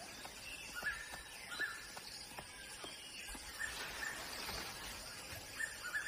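Faint rainforest ambience with a bird repeating a short, high chirp every second or so, and a few faint ticks in the first half.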